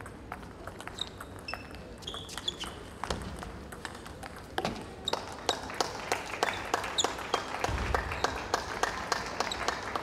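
A table tennis rally: the celluloid ball clicking off rackets and the table in a quick steady rhythm that picks up from about five seconds in, with short high squeaks of shoes on the hall floor.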